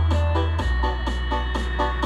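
Loud live music played through a large outdoor sound-system rig with stacked subwoofers: quick, evenly spaced keyboard-like notes about four a second over a heavy, sustained deep bass that moves to a lower note about half a second in.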